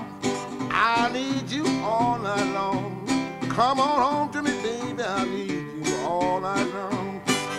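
Country blues played on guitar in an instrumental passage between sung verses, with plucked notes and repeated notes that bend and glide in pitch.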